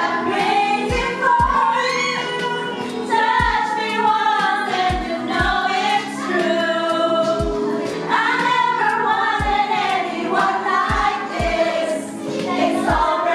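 A song playing: several voices singing a melody together over a deep kick-drum beat, its thumps often coming in close pairs.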